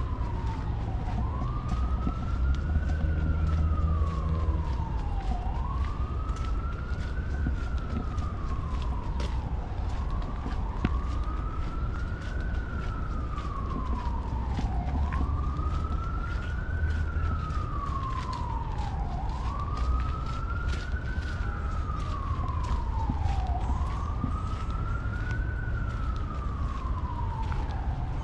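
Emergency vehicle siren in a slow wail, rising and falling about every four and a half seconds, over a steady low rumble.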